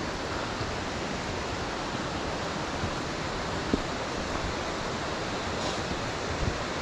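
Steady rush of a rocky stream's rapids and falling water, with a faint knock or two.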